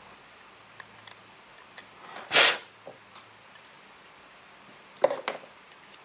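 Metal pick prying at the housing tabs of a car radio's rotary encoder: a few small ticks, a short loud rasp about two and a half seconds in, and a sharp click about five seconds in followed by smaller clicks.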